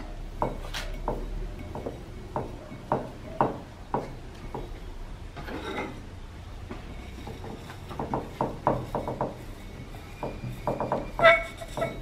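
Hands working clay coils into a vase wall: irregular soft taps and clicks as the clay is pressed and pinched, with a brief rub about halfway through and a sharper ringing knock near the end.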